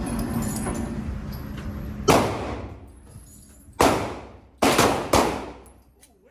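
Four gunshots at a shooting range, about 2, 4, 4.5 and 5 seconds in, the last two close together. Each rings out with a trailing echo.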